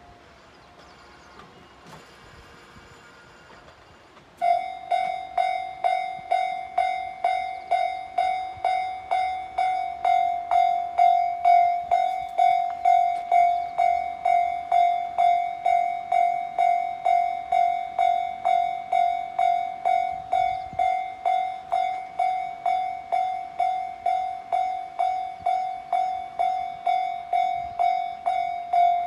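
Japanese level-crossing warning bell starts ringing about four seconds in, a loud, evenly repeating bell tone at about two strikes a second, signalling that a train is approaching.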